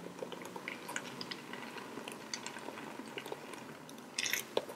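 Thick blended cassava purée pouring from a blender jar into a pot of hot broth, with soft wet plops and small pops throughout. A rubber spatula briefly scrapes against the jar about four seconds in.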